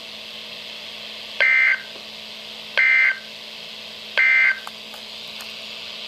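Emergency Alert System end-of-message tones from a Midland NOAA weather radio's speaker: three short bursts of SAME data warble, about a second apart, marking the end of the severe thunderstorm warning broadcast.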